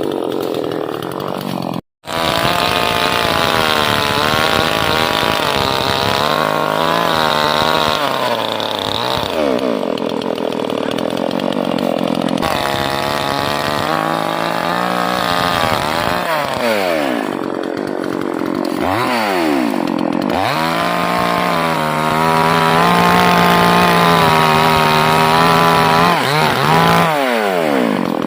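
Two-stroke chainsaw running hard while cutting keleban hardwood, its engine note dipping and climbing back several times as the chain loads and frees in the cut. The sound breaks off completely for a moment about two seconds in.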